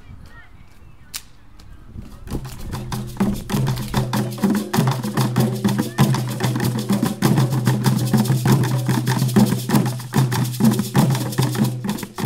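Percussion music, with hand drums playing a fast, dense rhythm over a steady low bass tone. It starts about two seconds in, after a few sharp single hits.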